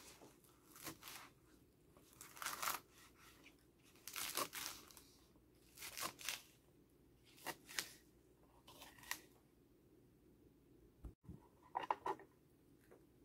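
Kitchen knife slicing through a stack of curly leaf lettuce on a wooden cutting board, with a short cutting stroke about every one and a half seconds. After a pause of a couple of seconds there is a last quick cluster of strokes near the end.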